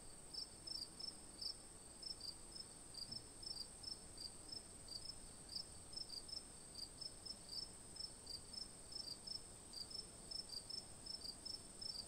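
Faint crickets chirping, two or three short high chirps a second, over a steady high-pitched hiss.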